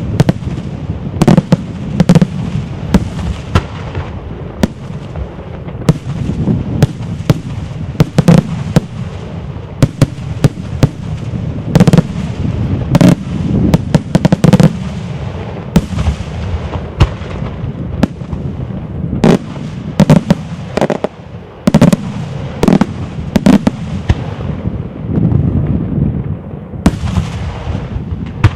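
Daytime aerial fireworks: a dense, irregular barrage of loud bangs from shells bursting overhead, several a second at times, with a low rumble filling the gaps between them.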